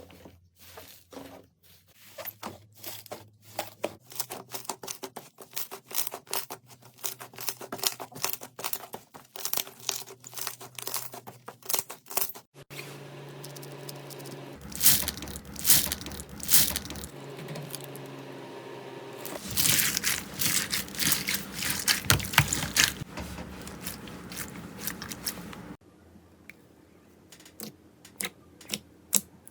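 Slime being squeezed, poked and stretched by hand, giving dense crackling and popping clicks. It comes as three joined clips: the sound changes abruptly about twelve seconds in and again near the end, and the middle clip is louder, with clustered bursts of crackle.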